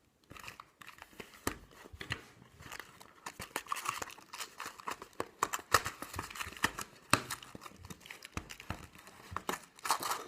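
Plastic wrapping crinkling and tearing in a dense run of irregular crackles as a sealed trading-card booster display box is unwrapped.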